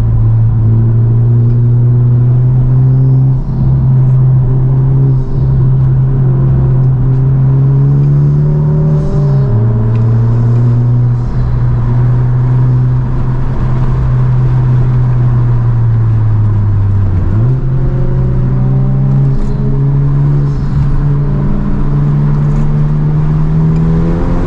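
A Honda Civic Type R's turbocharged four-cylinder engine, heard from inside the cabin while driving. The engine note climbs, drops sharply with an upshift about nine seconds in, then sinks slowly as the car coasts. Around seventeen seconds in it jumps up with a downshift and climbs again under throttle.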